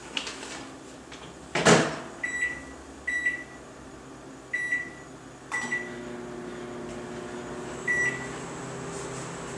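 Microwave oven being started: its door is shut with a knock about two seconds in, several short keypad beeps follow, and then it starts running with a steady hum.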